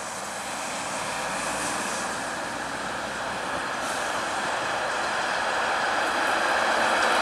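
A Canadian Light Rail Vehicle (CLRV) streetcar approaching on its track: a steady running noise that grows gradually louder as it nears.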